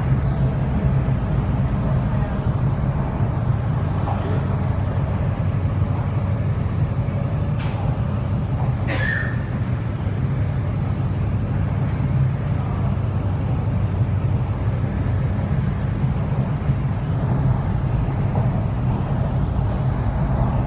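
Cabin running noise of an MTR East Rail line R-Train electric multiple unit in motion: a steady low rumble of wheels on rail and traction equipment. A brief high squeak cuts through about nine seconds in.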